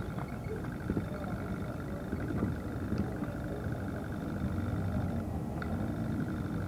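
Motorcycle engines running steadily, a continuous low rumble with a faint pulsing tone above it.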